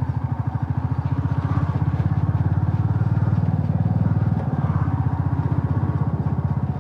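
Motorcycle engine running under way with a fast, even exhaust beat, a little louder from about a second and a half in.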